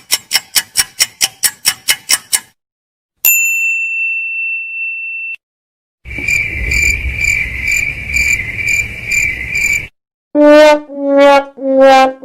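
A run of separate sound effects: rapid ticking clicks, about five a second, that stop about two and a half seconds in; a single steady high beep that cuts off suddenly; a pulsing ringing buzz for about four seconds; then short horn-like honks near the end.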